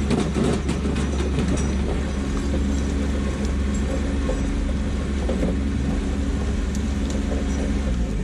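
Kubota B2601 compact tractor's three-cylinder diesel engine running steadily, with a clatter of knocks in the first second or so.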